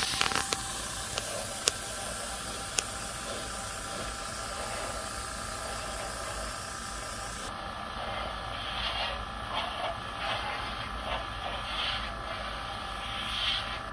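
Airbrush hissing steadily as it sprays thinned flat black acrylic onto a model freight car, with a few sharp clicks in the first three seconds.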